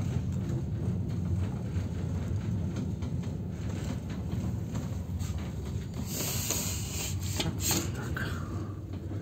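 Passenger train running, with a steady low rumble and scattered clicks and knocks. A louder hiss with sharper knocks comes about six to eight seconds in.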